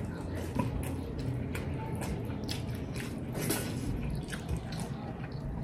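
Close-up mukbang eating sounds: wet chewing and lip-smacking, with fingers squishing rice and curry, as two people eat by hand. Many short wet clicks come irregularly, several a second.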